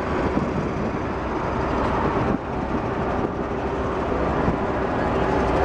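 A column of eight-wheeled BTR-80 armoured personnel carriers driving past, their diesel engines and tyres making a steady, dense noise with a constant low hum.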